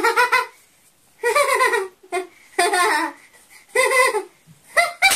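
A young girl laughing in about five short bursts of rapid 'ha-ha' pulses with brief pauses between them, acted out as a 'conversation laugh'.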